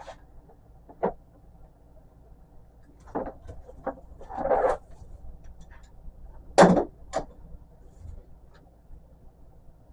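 Romex cable being stripped and handled by hand: scattered knocks, scrapes and rustles of the cable and its sheathing, with a longer scrape a little before the middle and the loudest knock about two-thirds in.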